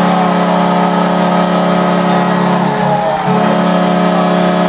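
Arena goal horn blowing after a goal: a loud, steady, low horn tone that breaks off briefly about three seconds in, then sounds again.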